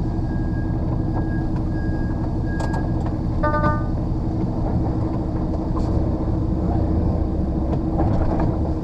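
HGV lorry's diesel engine running steadily, heard from inside the cab. A high beep pulses on and off for the first three seconds, and a short chime sounds about three and a half seconds in.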